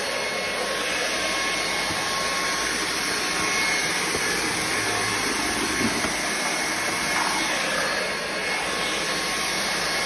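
Inse S600 cordless stick vacuum running: a steady rush of air with a faint whine as the floor head is pushed across tile.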